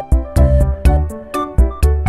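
Background music with a steady beat of heavy low thumps and sharp clicks under a melody.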